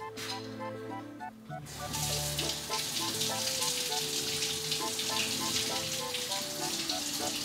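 Background music with a plucked melody. From about two seconds in, it is joined by a steady hiss of water in a saucepan heating toward a boil on a gas burner.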